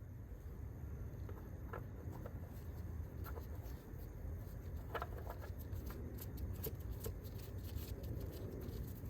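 Faint scattered clicks and light handling noises over a low steady rumble, the clicks coming more often in the second half.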